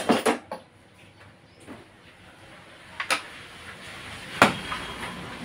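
Metallic knocks and clatter: a steel rod knocking against and inside a submersible pump's stainless-steel barrel as the pump is taken apart to drive out its impeller stack. There is a quick rattle of several knocks at the start, then single knocks about three and four and a half seconds in, the last the loudest, with a short ring.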